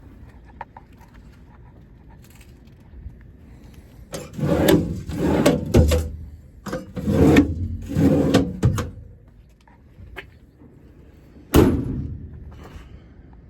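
Metal storage drawers in a truck service body being slid in and out, rattling in several loud strokes over about five seconds. A couple of seconds later comes a single sharp slam, typical of a metal compartment door shutting.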